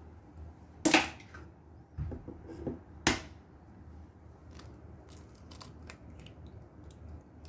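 Two sharp knocks about two seconds apart, with lighter knocks between them: an egg being cracked against the rim of a stainless steel bowl. Faint small clicks follow as the eggshell is pulled apart.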